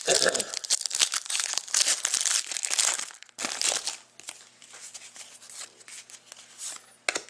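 Trading-card pack wrapper crinkling and tearing as it is opened, with dense crackling for about the first three seconds, then quieter rustles and clicks of cards being handled.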